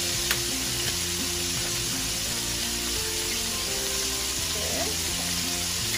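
Chopped beef sizzling steadily in olive oil in a frying pan, with background music playing underneath.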